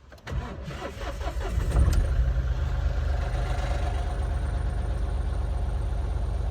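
Mahindra Bolero BS6's diesel engine being cranked by the starter for about a second, catching with a brief rev about two seconds in, then settling to a steady idle.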